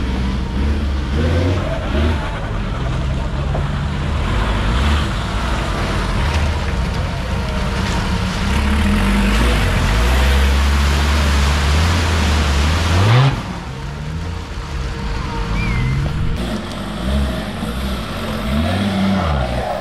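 Modified GAZ 69 off-road trial truck's engine revving hard under load, held high for several seconds before the revs drop suddenly about two-thirds of the way through, then rising and falling in short blips of the throttle.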